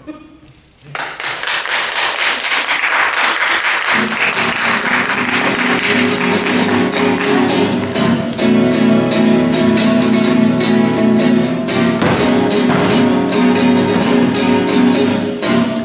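Audience applause breaking out about a second in, joined about four seconds in by flamenco-style guitar music with strumming, which carries on loudly.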